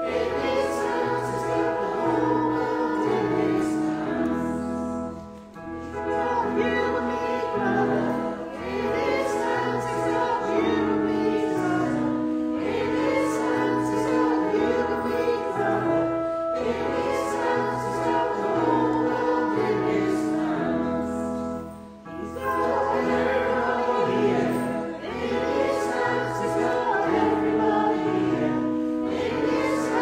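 A group of voices singing a worship song together with instrumental backing, the tune moving in repeated phrases with two brief breaks, about five seconds in and again near twenty-two seconds.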